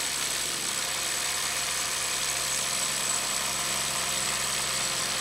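Milwaukee M12 Fuel brushless impact driver on a 2 Ah battery hammering steadily under load against a hydraulic pressure-test rig.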